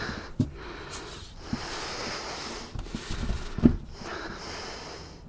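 A few light knocks and clicks as a cordless drill and a plywood sheet are handled, over a faint steady hiss; the drill is not running.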